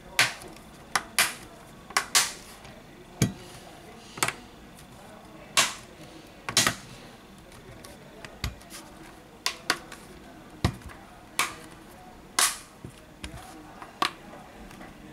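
Plastic snap clips of a Lenovo Yoga Tab 3's housing clicking into place as the edges are pressed shut: a dozen or more sharp clicks at irregular intervals, roughly one a second.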